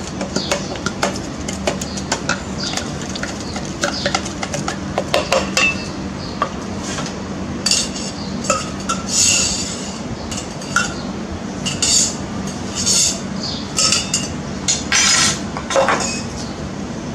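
Wooden muddler pounding coriander leaves in a stainless-steel cocktail shaker, giving irregular knocks and metallic clinks, with a few louder bursts in the second half.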